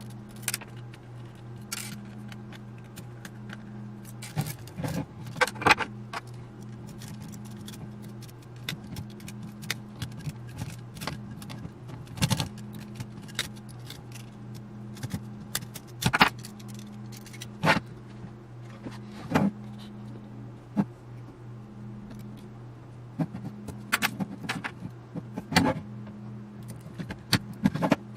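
Irregular clicks, clinks and taps of hand tools and small metal parts as a radio control box with wafer switches is taken apart, over a steady low hum.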